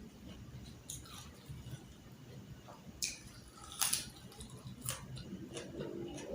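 A person eating close to the microphone: wet chewing and mouth smacks with a few sharp clicks, the loudest a little past the middle, over a low steady hum.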